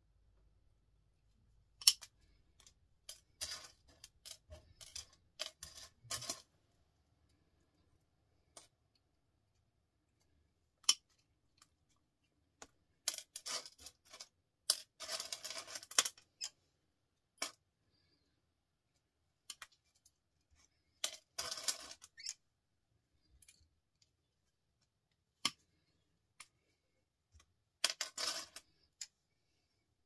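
Small plastic-and-metal microwave micro switches being handled. Several short runs of clicking and clattering, with single sharp clicks in between.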